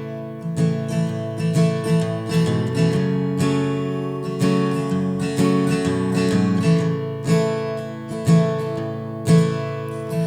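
Acoustic guitar playing an instrumental intro, strummed chords with clear note attacks and no voice yet.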